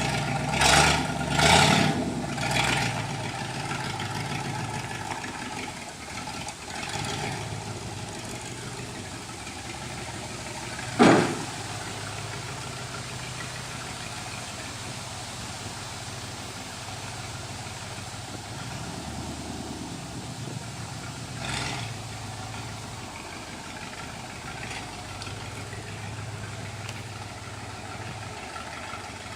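1958 Chevrolet Apache pickup's engine idling steadily, with a few short louder sounds in the first three seconds and one sharp bang about eleven seconds in.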